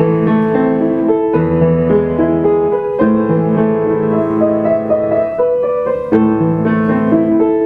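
Piano music playing chords, with new chords struck about every one and a half seconds.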